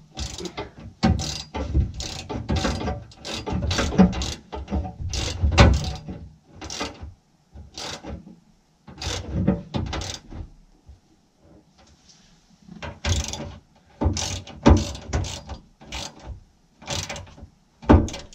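Hand ratchet clicking in runs of short strokes as self-tapping screws are driven tight into the metal parcel tray's bracket, with a pause of a couple of seconds about eleven seconds in.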